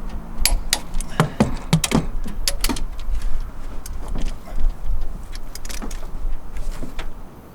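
Sharp metallic clicks at an irregular pace, several a second, from a wrench being worked on the cylinder head bolts of a Ford 400 V8 as they are torqued. A low wind rumble runs underneath.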